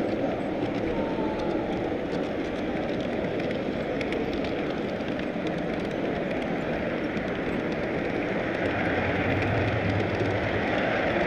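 Steady rolling rumble of a large-scale model train's wheels on its track, heard from a camera riding on the train, over the background noise of a busy hall.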